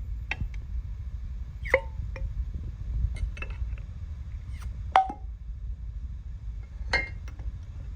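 A handful of sharp clinks and knocks of kitchen pots and utensils being handled, two of them ringing briefly, over a steady low rumble.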